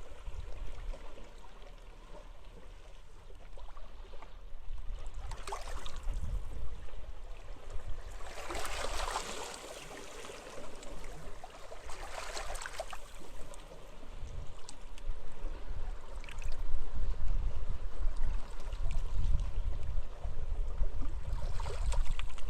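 Sea waves washing onto a beach, each wave swelling in and fading, the largest about nine seconds in, over a steady low rumble of wind.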